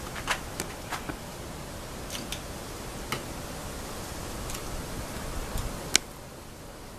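Scattered small clicks and taps from screws and metal parts being handled while a door lock is fitted, with one sharp click about six seconds in.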